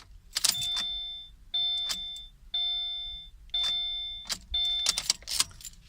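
A 2017 Subaru Forester's in-cabin warning chime sounds five times, about once a second, each tone ringing and dying away. Sharp clicks come just before the first chime and again near the end.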